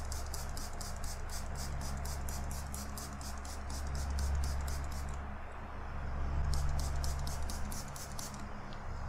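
Hand trigger spray bottle pumped rapidly, about five squirts a second, spraying water onto a helmet visor, in two runs with a pause of about a second just after the midpoint. An electric desk fan hums steadily at full speed underneath.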